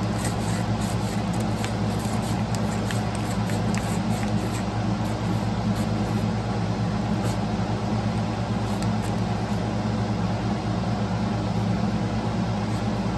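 Steady low mechanical hum, like a shop fan, with light clicks and taps in the first few seconds as a bearing is fitted into a rod balancing fixture.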